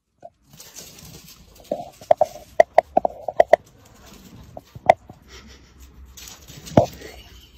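A cat and a French bulldog sparring: a quick run of about ten short, sharp sounds, then two more single ones, the last the loudest, near the end.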